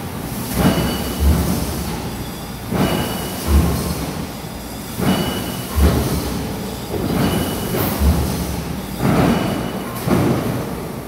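Machinery running in a steady repeating cycle of about two seconds, each cycle a swell of clattering noise with a low thud and a faint whistle.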